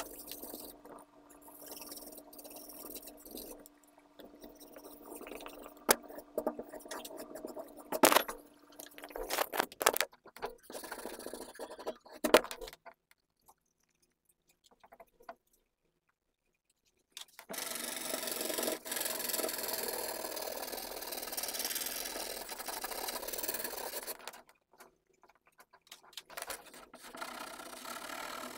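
Drawing tool rubbing and scraping on paper while shading a drawing, with a few sharp knocks in the first half. There is a break of a few seconds near the middle, then steady rubbing.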